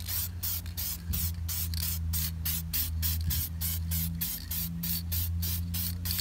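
Aerosol spray-paint can hissing onto a wheel in short, rapid bursts, about four or five a second, over a steady low hum.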